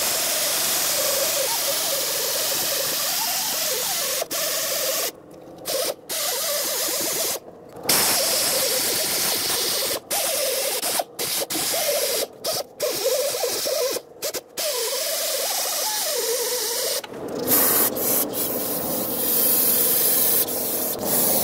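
Wire wheel on a right-angle air tool scrubbing rust and corrosion off a steel steering knuckle's wheel-bearing bore. Its pitch wavers as it bites, and it cuts off and restarts about ten times as the trigger is let go. Near the end the tool stops and a steady hissing spray takes over.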